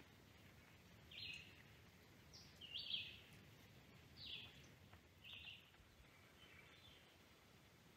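A bird giving a series of short, high calls about once a second, loudest about three seconds in and growing fainter near the end, over quiet outdoor background noise.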